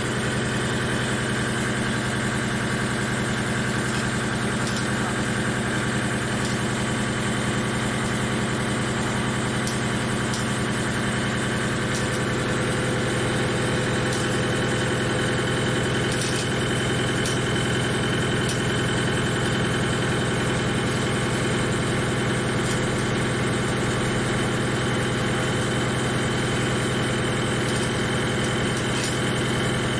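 Thread-whirling head on a CNC lathe running steadily as it mills the thread of a motor worm shaft: a constant machine hum with a thin high whine and a few faint ticks.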